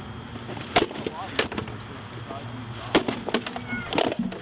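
Stick swords striking shields and armour in close sparring: a series of irregular sharp knocks, with a quick flurry of blows about three seconds in.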